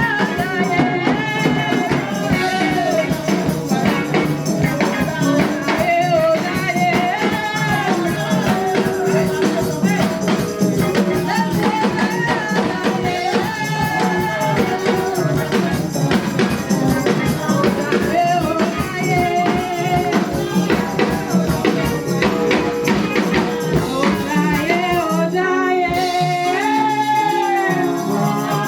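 Gospel praise music: a singing voice carries a wavering melody over fast, steady drums and tambourine.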